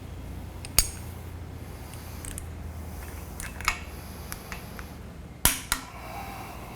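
A few sharp metallic clinks and clicks from a wrench and socket working steel flange bolts as they are brought up to final torque. The loudest comes about two-thirds of the way through, with a smaller click right after it.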